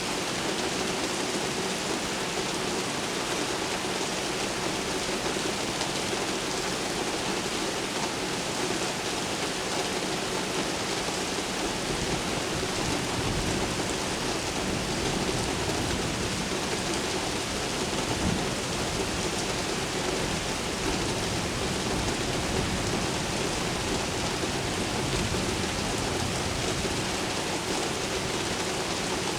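Steady downpour of rain hissing on city surfaces. A low rumble comes in about halfway through.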